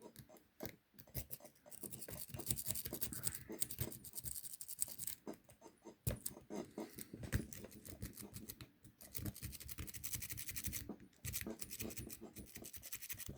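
A worm rake scrubbed in and out of a large Tool Tech padlock's keyway against a tension wrench: runs of fine, rapid metallic clicking and scratching as it rattles over the pin stacks, with short pauses between runs.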